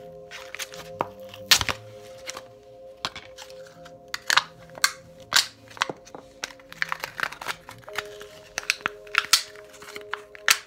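Fingers and nails tapping and clicking on assorted small objects in quick, irregular taps, the sharpest about a second and a half in, over faint background music.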